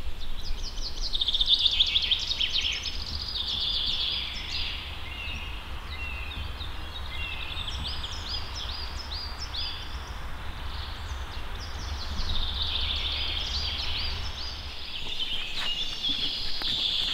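Songbirds singing in a pine forest: quick series of high chirps and trills, one phrase after another, over a low steady rumble that stops about fifteen seconds in.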